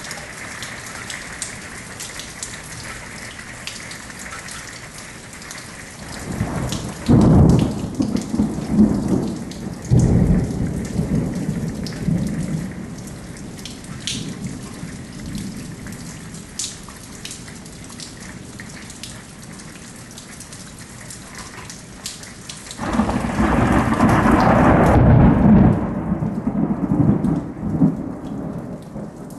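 Steady rain falling, with drops ticking close by, and two long rolls of thunder: one starting about six seconds in and one about twenty-three seconds in.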